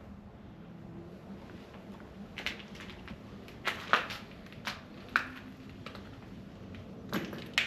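Footsteps crunching over debris and grit, a handful of irregular sharp crunches and scrapes, the loudest about four seconds in.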